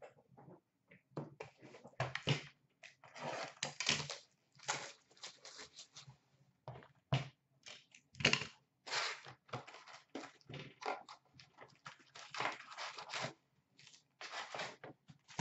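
Hands opening a cardboard box of trading-card packs and handling the foil packs inside: irregular crinkling, rustling and tearing of cardboard and wrappers, in short uneven bursts.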